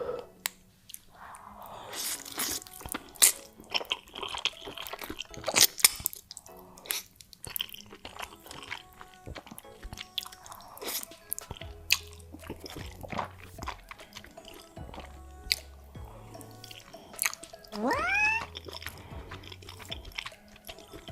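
Close-miked mukbang eating: crisp crunching bites and chewing, loudest in the first seven seconds, over background music with a low bass line that comes in about halfway. A short rising whistle-like sound comes about eighteen seconds in.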